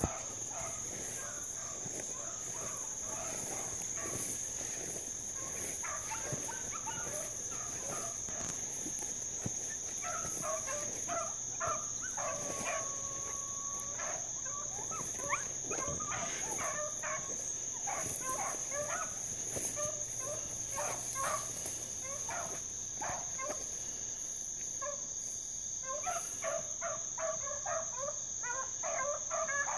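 A pack of hounds, puppies among them, baying and barking while running a rabbit. The calls come in scattered runs and grow thicker near the end, over a steady high drone of night insects.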